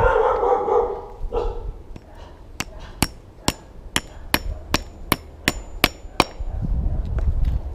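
A hammer striking a small steel washer on a stone ledge, about ten sharp blows at two or three a second, some with a faint metallic ring, denting the washer so it will fit into a motorcycle exhaust outlet.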